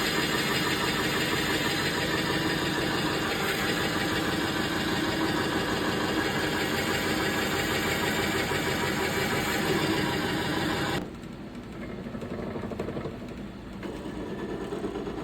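Wood lathe running with a Forstner bit boring into a spinning glued-up black palm and zebra wood blank: a steady grinding cutting noise. About eleven seconds in the cutting stops and only a quieter running sound remains.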